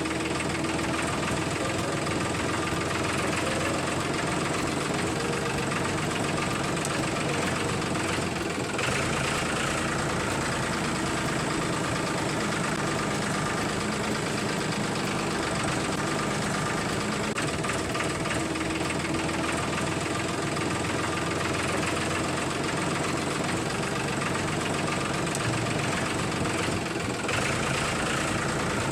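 A mini tractor's small motor running steadily, with an even knocking rhythm; a higher-pitched layer joins in about a third of the way through and again near the end.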